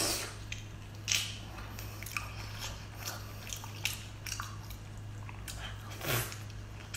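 Close-up wet biting and chewing of soft raw salmon coated in spicy sauce: many short lip smacks and mouth clicks, with louder slurping bites at the start, about a second in and about six seconds in. A steady low hum runs underneath.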